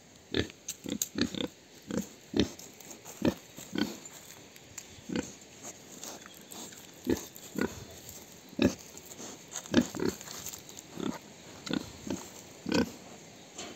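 Pigs grunting close up: a run of short, irregular grunts, one or two a second.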